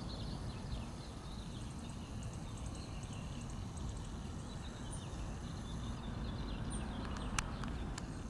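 Outdoor street ambience: a steady low rumble of wind on the microphone, with faint birds chirping through the first half and two sharp clicks near the end.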